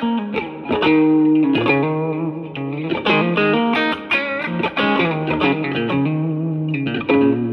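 Electric guitar, a Stratocaster with three single-coil pickups, played through a Yamaha THR10C modeling amp on its Brit Blues amp model. The guitar plays a lead line of picked single notes with several string bends.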